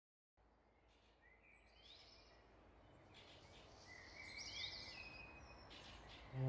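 Several birds chirping and calling faintly over a quiet outdoor ambience, fading in from silence about half a second in. Music comes in at the very end.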